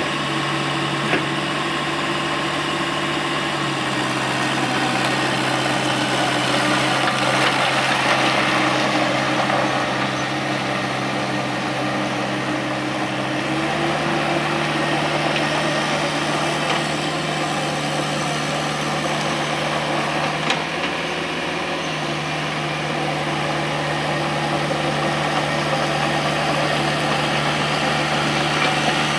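Cat 305E mini excavator's diesel engine running steadily. Its pitch drops slightly a few seconds in and rises again about halfway through.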